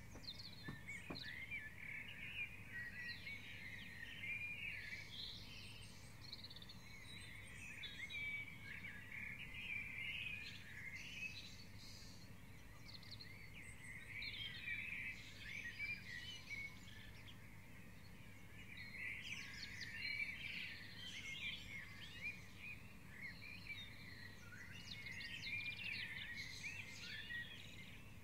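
Dawn chorus: many songbirds singing at once, their chirps, whistles and trills overlapping without a break.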